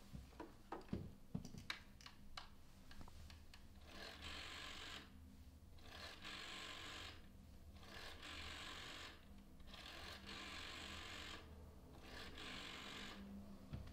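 Rotary-dial telephone being dialled: a few sharp clicks and knocks as the handset is picked up, then the dial whirring back five times, each return lasting about a second, with short pauses between as the next digit is wound.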